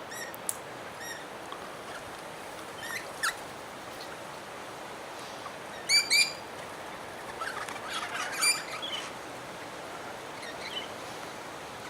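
Parrots at a bird feeder giving short, sharp whistled calls: a few scattered calls, a loud pair about six seconds in, and a busier run of squabbling calls around eight seconds.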